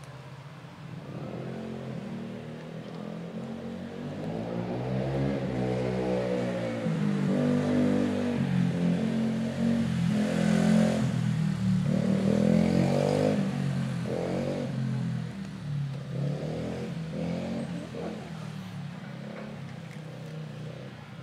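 A cat growling: a long, low growl that swells and fades in waves, loudest about halfway through, an angry warning from a cat crowded at the food.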